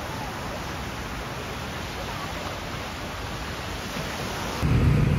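Small ocean waves breaking and washing up the sand: a steady rushing surf noise. Near the end it gives way abruptly to a louder low rumble.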